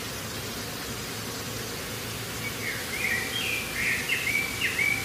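A bird chirping repeatedly, several short quick calls in a row starting about halfway through, over a steady background hiss of outdoor ambience.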